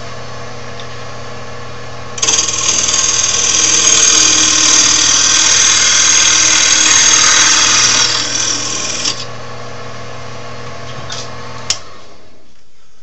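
Wood lathe motor running with a steady hum. About two seconds in, a turning tool bites into the spinning oak blank, and a loud, rough cutting noise lasts some seven seconds as the last uneven edge is trued round. A click comes near the end as the lathe is switched off and the hum stops.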